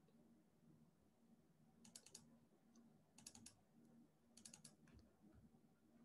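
Faint typing on a computer keyboard: three short bursts of a few keystrokes each, about two, three and four and a half seconds in, over a faint low hum.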